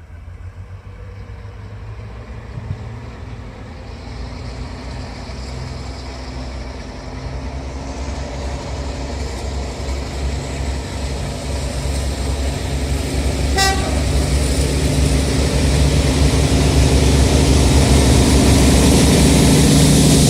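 Diesel locomotive approaching under power, its engine rumble growing steadily louder, with a brief horn toot about two-thirds of the way through.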